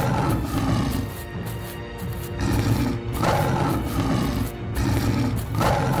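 Cartoon background music with tiger roar sound effects swelling up three times, about three seconds apart.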